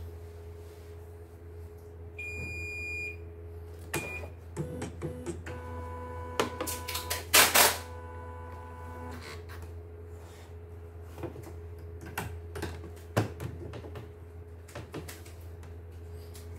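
CNY portable computerised embroidery machine switched on for a test: its control panel beeps, one beep held for about a second and then a short one, over a steady low hum. Then a steady whining tone runs for a few seconds while the embroidery hoop is clicked onto the carriage, with a loud clatter in the middle and scattered plastic clicks.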